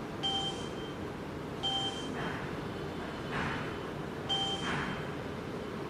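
Three short electronic beeps, irregularly spaced, as the key code is entered on the key cutting machine's controls. Each beep is a brief two-pitch blip over a faint background hiss.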